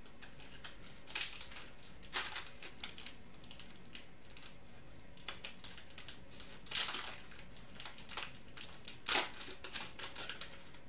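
Silver foil trading-card pack crinkling and tearing as it is worked open by hand, in several short bursts with the loudest about nine seconds in.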